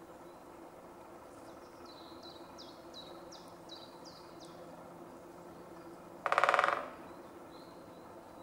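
Male great spotted woodpecker drumming: one short, very rapid roll of strokes, lasting little more than half a second, about six seconds in. Before it, a small songbird sings a run of about eight quick high notes, each falling in pitch.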